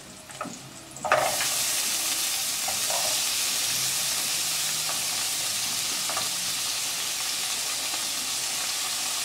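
Diced onion hitting hot olive oil with sliced garlic in a frying pan: a sizzle starts suddenly about a second in and carries on steadily as the onion fries.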